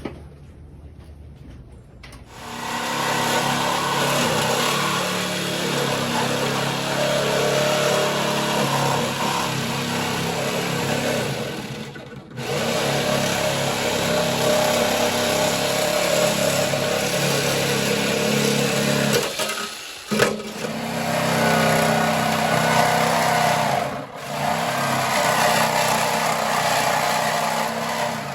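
Power sander with 220-grit paper running steadily against sheet metal, starting about two seconds in, with brief stops near the middle and again later.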